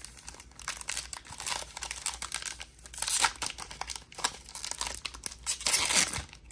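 Foil-lined wrapper of a Topps trading card pack being torn open and crinkled by hand: irregular crackling and tearing, loudest about three seconds in and again near the end.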